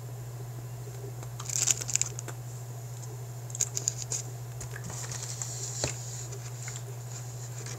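Clear plastic snack-cake wrapper crinkling in two short bursts of crackles, with a single click later, over a steady low hum.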